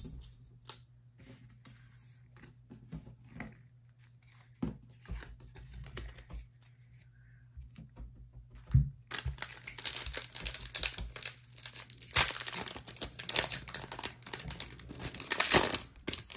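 Trading cards being handled and set down on a table with light knocks, then, about nine seconds in, the foil-lined plastic wrapper of a 2023 Score football card pack being torn open and crinkled for several seconds.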